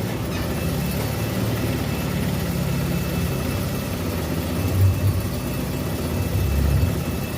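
A car engine running at low revs, a steady low rumble that swells briefly about five seconds in and again near six and a half seconds.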